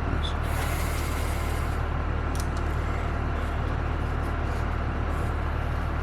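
A steady low machine hum runs throughout, with a short hiss about half a second in and a few faint clicks.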